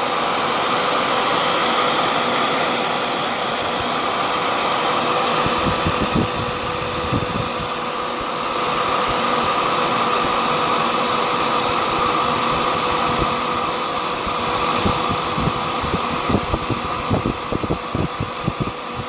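Handheld blow dryer running steadily on a constant hum of blowing air, with irregular low thumps of air buffeting from about five seconds in. It is heating body butter to soften it, and it cuts off suddenly at the end.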